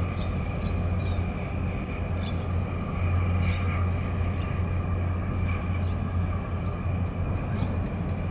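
Steady low drone of a large container ship's engines and machinery passing close, with a steady whine higher up. Short high chirps come at irregular intervals.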